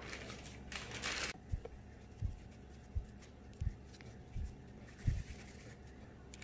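Burger-bun dough being shaped by hand on a floured board. A short rustle about a second in as a dough ball is set down on the sheet-lined baking tray, then quiet, dull thuds about every three-quarters of a second as the dough pieces are picked up and pressed.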